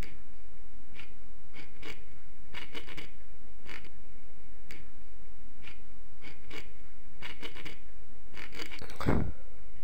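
Short dry scratching scrapes, single or in quick clusters, about once every second over a steady hiss and low hum, with a louder, fuller swish about nine seconds in.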